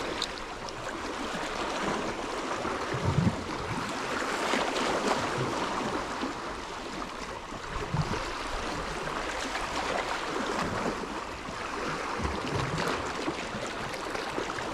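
Gentle sea waves washing and lapping against shoreline rocks: a steady wash with a few soft, low slaps.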